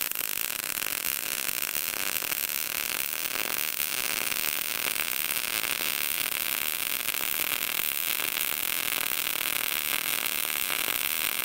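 Short-circuit MIG welding arc laying a fillet weld on 10-gauge (1/8 inch) material at 17.5 volts and 200 inches a minute wire feed: a steady, even arc noise.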